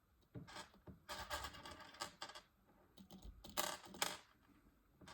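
Small zinc pieces clicking and rattling against each other and the sphere as they are pushed back into a hollow vending-machine capsule ball, in irregular light clatters with the loudest bursts about a second in and near four seconds.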